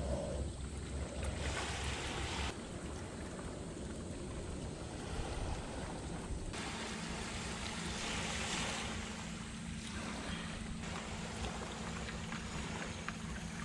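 Small waves washing on a pebble shore, with wind on the microphone. A faint steady low hum joins about six and a half seconds in.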